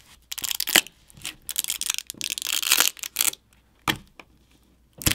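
A smartphone battery being levered out with a plastic pry tool: the adhesive beneath it tears with crackling and scraping in bursts, then a couple of sharp clicks near the end.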